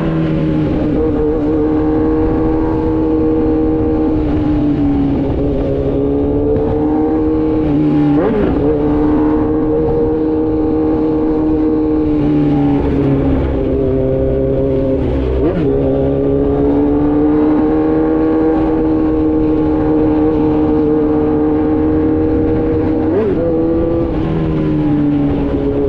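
Kawasaki Z900 inline-four running through an Austin Racing full exhaust, riding at a steady cruise, its pitch drifting slowly up and down. Three times the revs dip sharply and come straight back.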